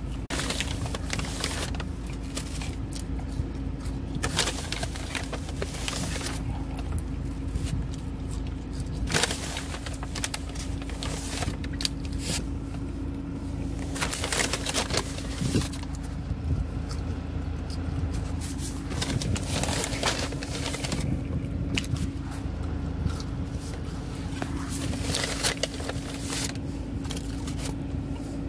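A brown paper fast-food bag crinkling and rustling as it is handled, with eating sounds, in irregular crackly bursts over a steady low hum of the car.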